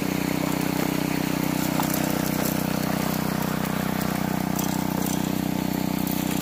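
Small petrol engine of a 2-inch suction dredge running steadily at one speed, with water rushing through the dredge's sluice box.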